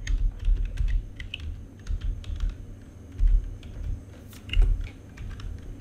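Typing on a computer keyboard: a run of irregular key clicks, with dull low thumps among them.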